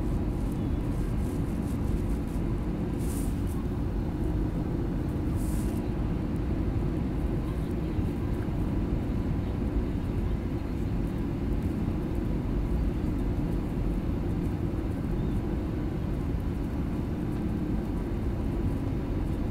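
Steady cabin noise inside an Airbus A320-200 descending on approach: a deep, even rumble of the jet engines and airflow past the fuselage, with a faint steady hum. Two brief faint hisses sound a few seconds in.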